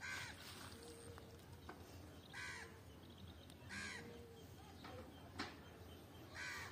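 A crow cawing four times, a second or two apart, with a single sharp click about five seconds in.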